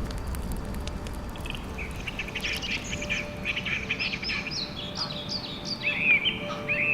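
Wild birds calling: a busy chatter of high notes starts about two seconds in, and near the end gives way to short, arching call notes repeated about once a second, over a faint low rumble.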